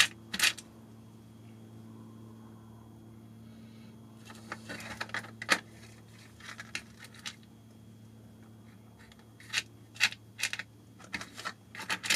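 Light clicks and rattles of small parts being handled on a workbench as an O-ring is picked out of a set of spares, coming in a few clusters with quiet gaps between. A steady low hum runs underneath.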